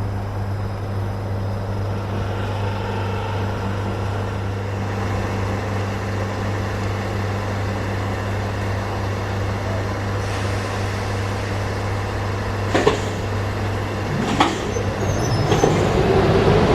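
An electric passenger train, hauled by a Skoda 68E locomotive, approaches. A steady low hum runs through most of it, two sharp knocks come near the end, and then the sound of the train swells louder as it nears.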